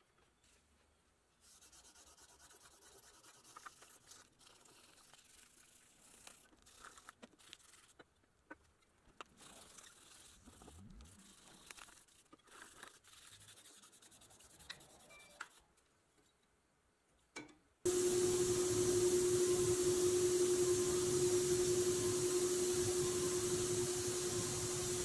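Faint rubbing and light clicks from wet sanding and handling small pressed-steel toy truck parts. About eighteen seconds in, a handheld paint spray gun starts and runs steadily and much louder, a hiss of atomised paint over one steady hum.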